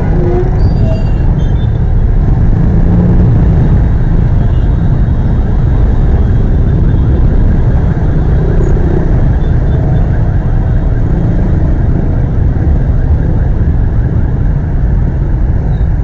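Road traffic and a scooter engine at crawling speed, picked up by a camera mounted on the scooter: a loud, steady low rumble.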